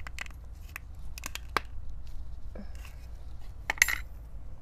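Drip-irrigation hole punch being pressed into black poly drip tubing: small clicks and handling rustles, then one sharp click nearly four seconds in as the punch pops through the tubing wall.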